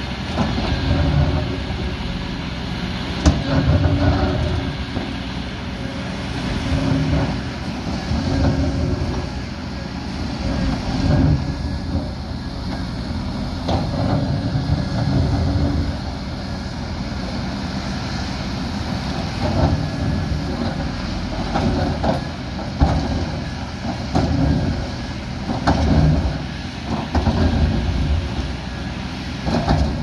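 Diesel earthmoving machines working: a Kobelco crawler excavator and a JCB backhoe loader run with their engines swelling and easing under load every few seconds, with occasional sharp knocks.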